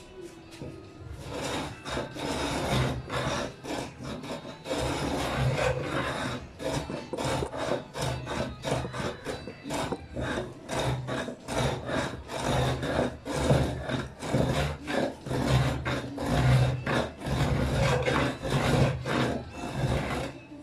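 Hand tool scraping along a wooden edge in quick repeated strokes, about two a second, rounding off the corners of a wooden speaker box.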